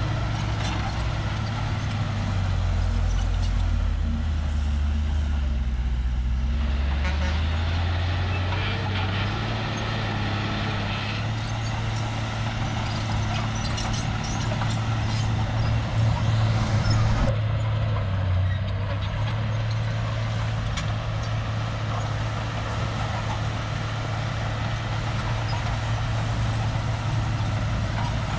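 Shantui crawler bulldozer's diesel engine working steadily. About two seconds in, the engine note drops lower for several seconds, then rises back to its working pitch.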